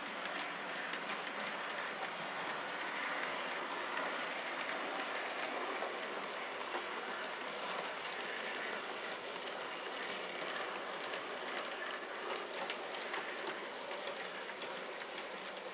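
OO gauge model goods train, a Bachmann Class 20 diesel model hauling a rake of wagons, running along the track with a steady rattle of small wheels on rail and faint ticks over the rail joints.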